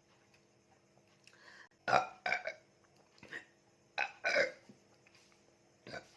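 A woman burping after gulping carbonated Coca-Cola. There are two loud burps, about two seconds in and about four seconds in, each coming in two quick pulses.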